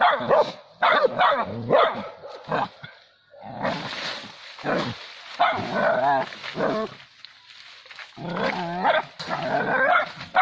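Dogs barking and yelping while attacking a cornered wild cat, first in quick short barks, then in longer, wavering cries about six and nine seconds in.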